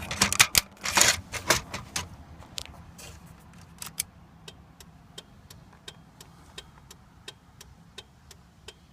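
Car flasher ticking steadily, about three clicks every two seconds, after a few louder clicks and knocks at the start: the signal lights flashing again now that the hazard switch is plugged back in.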